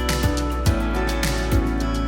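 Background music with a steady beat of low thumping drum hits under held chords.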